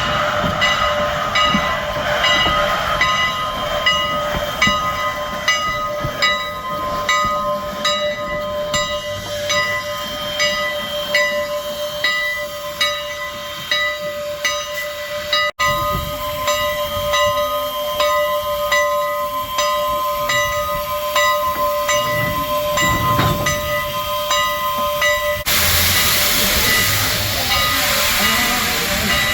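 Steam-hauled passenger train rolling along: regular clicks of wheels over rail joints under a steady whine. A hiss comes in loudly near the end.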